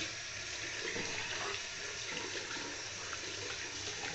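Bathroom sink tap running steadily, water pouring into the basin.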